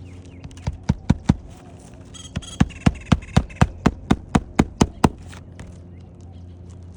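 Hammer driving roofing nails into an asphalt shingle: a few strikes about a second in, then a fast, even run of about a dozen strikes, roughly four a second, over a steady low hum.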